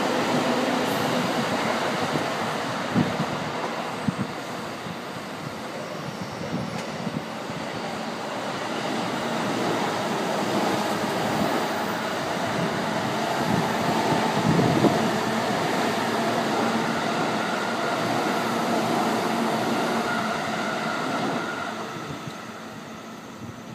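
Electric commuter trains passing on the tracks below: the steady run of wheels on rails with a faint electric motor whine, swelling as a second train goes by and fading away about two seconds before the end.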